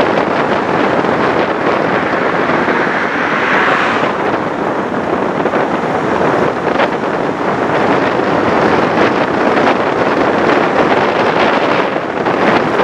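Steady rushing road and wind noise of a vehicle driving along, with wind buffeting the microphone.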